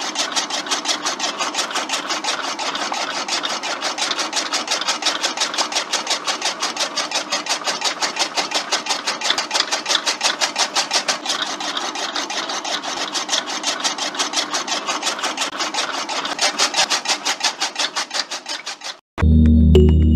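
Small electric motor driving a miniature homemade chaff cutter by a belt, its blade chopping fresh green stems fed in by hand: a fast, even run of clicks over a whir. It cuts off suddenly near the end, and music starts.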